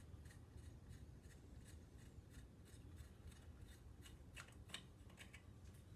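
Faint, irregular metallic clicks and scraping of a thread tap being turned back out of a freshly tapped hole by hand, two or three ticks a second.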